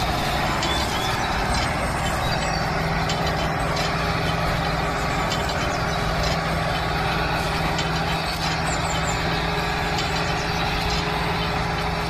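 Handmade mini 4x4 tractor's motor and drivetrain running steadily, a constant mechanical drone with a steady hum that firms into a clear tone a couple of seconds in.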